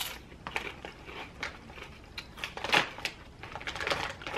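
A person chewing potato chips: irregular crisp crunches in quick succession.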